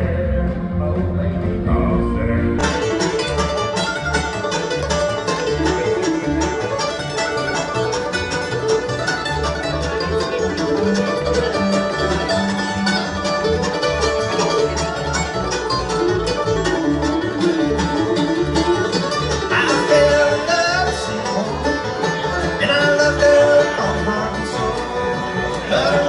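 Live bluegrass band playing: banjo, mandolin and acoustic guitar picking over upright bass and fiddle, with singing. About two and a half seconds in it cuts in from another live band's music.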